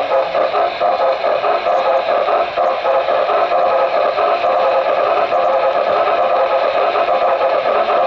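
Model train running along the track, heard from a camera riding on the train: a loud, steady rattling hum of wheels and drive close to the microphone.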